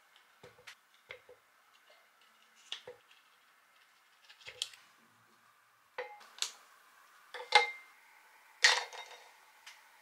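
Butter unwrapped from its wrapper and dropped into a bowl, then pieces of a dark chocolate bar added, knocking against the bowl: a series of short clicks and knocks, growing louder in the second half, with the loudest two near the end.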